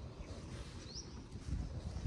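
Outdoor ambience with a single short bird chirp about a second in, over a low rumble that swells near the end.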